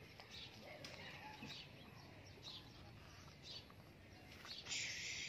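Faint, repeated high chirps of small birds in the background. Near the end comes a short rush of hissing, as loose soil slides out of a tipped plastic toy dump truck.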